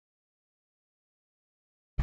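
Dead silence, then a loud noisy sound switches on abruptly right at the very end.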